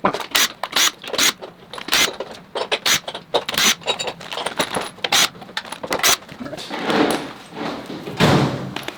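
Hand tools and loose valve cover bolts clinking against metal while a Ford 5.4L 4-valve V8's valve covers come off: a run of irregular sharp metallic clicks, with a couple of longer scrapes near the end.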